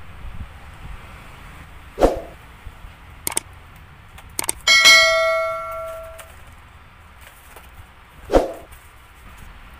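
A bell-like ding from a subscribe-button sound effect, ringing out and fading over about a second and a half, led in by two mouse-click sounds. A dull thump comes about two seconds in and again near the end, as a cardboard pizza box is handled on the table.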